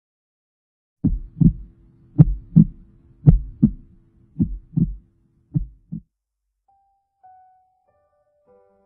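Heartbeat sound effect: five slow double thumps, about one pair a second, over a faint low steady tone, stopping about six seconds in. Soft sustained music notes then come in faintly near the end.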